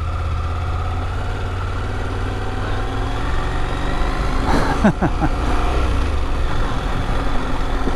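2022 KTM 890 Adventure's parallel-twin engine running steadily at low revs on a dirt track, with a short sweeping sound near the middle.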